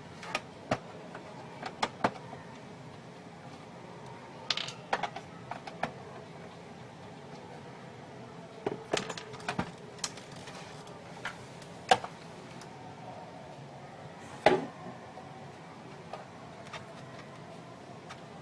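Irregular clicks and knocks of hard plastic printer parts being handled and worked on, some in quick clusters, over a steady low hum.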